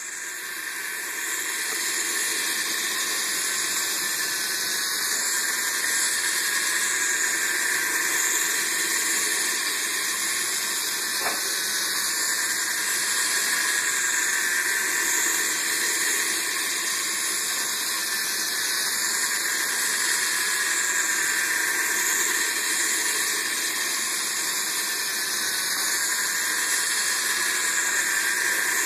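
Battery-powered toy train running on plastic track: a steady whirring hiss from its small motor and wheels that swells slightly about every seven seconds.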